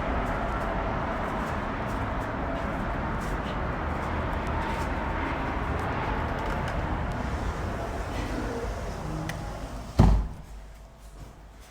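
Steady outdoor city noise with a low traffic rumble, then about ten seconds in a single loud thump of a door shutting, after which the outside noise drops away sharply.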